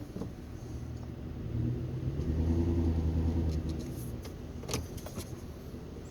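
Ford F-150's 5.0-litre V8 revving up under load for about two seconds and easing back off, as the truck pulls against a tow strap on an uprooted tree. A few light metallic clicks and jingles, the clearest near the end.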